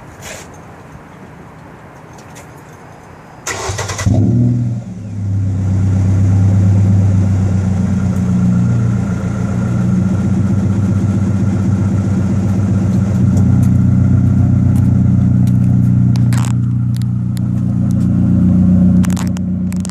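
Ford Ranger exhaust with a Flowmaster 40 series muffler, heard close up at the muffler. The engine is cranked and catches about three and a half seconds in, flares briefly, then settles into a steady, loud, low idle.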